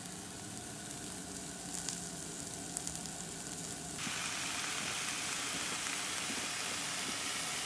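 Sliced onions and peppers and venison roasted-garlic sausage patties sizzling in a frying pan on a stove, with a few faint ticks. The sizzle steps up, louder, about four seconds in.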